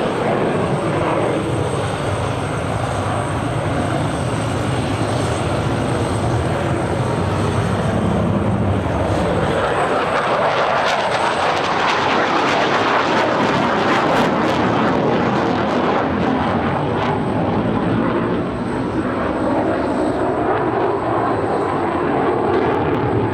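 Display aircraft flying overhead, its engine roar continuous and loud, turning brighter and harsher about halfway through as it passes closest.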